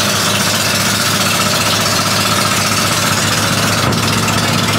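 Honda GX390 single-cylinder four-stroke engine running steadily, driving the bangka's propeller under way, over a steady rush of wind and water noise.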